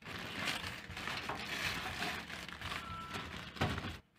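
Plastic courier pouch crinkling and rustling as it is cut open with scissors and handled, with a sharper crackle near the end.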